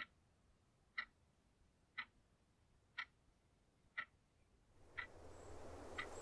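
A clock ticking, one sharp tick each second, with a low rushing sound swelling up from about five seconds in.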